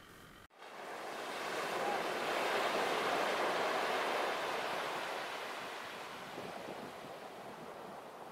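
Surf on a beach: the wash of a breaking wave starts suddenly, swells over a couple of seconds and slowly fades.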